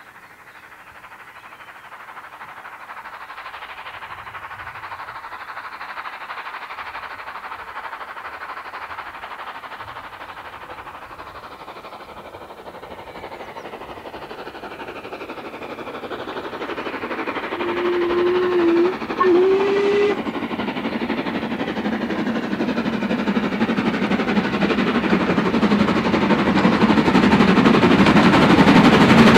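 LMS Jubilee 4-6-0 No. 45690 Leander steam locomotive approaching under power, its exhaust and running getting louder as it nears. About eighteen seconds in it sounds a low whistle, briefly broken off and then blown again.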